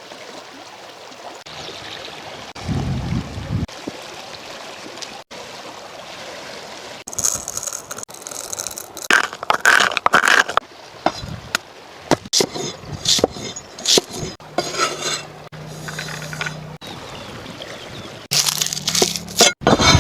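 Running stream under the irregular clinks, knocks and scrapes of cookware and utensils being handled while cooking outdoors.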